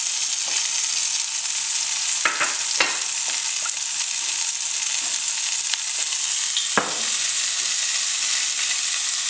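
Sliced bell peppers and red onion sizzling steadily in hot vegetable oil in a frying pan, freshly added to sauté. A few light clicks and knocks come through the sizzle.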